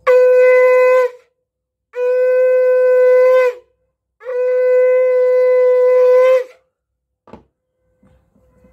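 Conch shell (shankha) blown three times, each a steady held note: a short first blast, then two longer ones, each dipping slightly in pitch as it dies away.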